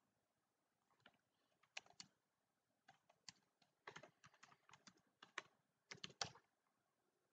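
Faint computer keyboard typing: a run of irregular keystrokes, starting about a second in and stopping shortly before the end.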